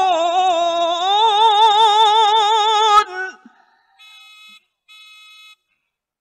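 A male Quran reciter draws out the last word of the verse, 'yajhadun', in one long ornamented note whose pitch wavers and rises; it cuts off about three seconds in. Two faint short steady tones follow, then silence.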